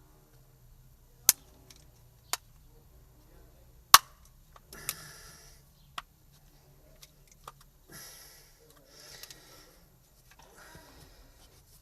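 Sharp plastic clicks and snaps, the loudest about four seconds in, with short bursts of scraping and rustling between them. This is the plastic latches of a Kia Rio accelerator pedal housing being pried apart with a screwdriver.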